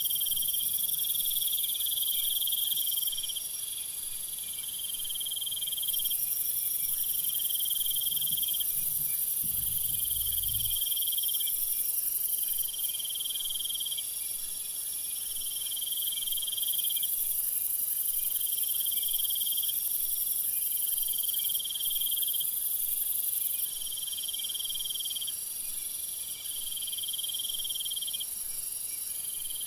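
Meadow insects chirring: a high trill that repeats about every two seconds, each lasting about a second and a half, over a steady, very high-pitched insect hiss.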